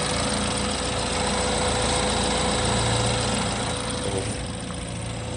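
BMW F30 328i's turbocharged 2.0-litre four-cylinder engine idling steadily, breathing through a newly fitted AFE Power aftermarket air intake. It gets a little quieter near the end.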